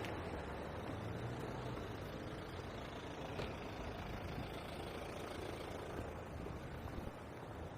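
Steady road traffic noise: a continuous rumble of passing cars and heavier vehicles.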